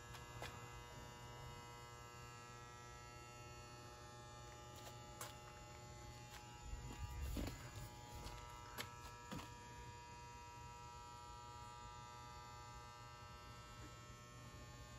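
Faint, steady electrical hum made of several held tones. A few soft knocks and rustles come in around the middle.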